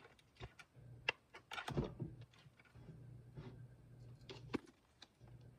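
Light clicks, taps and scrapes of a small metal tool and fingers on a plastic star projector housing, worked at to free a screw stuck inside. The sharpest click comes about a second in, with more near two seconds and again near four and a half.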